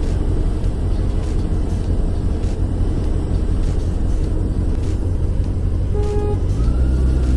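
Motor scooter riding slowly in traffic: a steady low engine rumble with wind noise on the helmet-mounted microphone. A brief pitched tone sounds about six seconds in, and near the end the engine note steps up as the scooter begins to accelerate.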